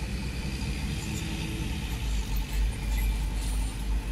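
A coin scratching the coating off a paper scratch card, over a steady low rumble.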